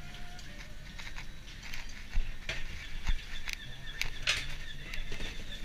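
Irregular knocks and clanks of gear in a fishing boat's hold during offloading, with two heavier thumps about two and three seconds in, over a steady low hum.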